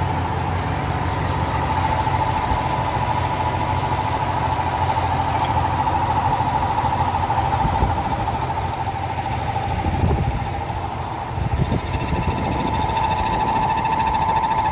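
Ford F-150 5.0 L V8 idling with a steady high-pitched squeal from the engine area, the squeal these engines make when the water pump is failing.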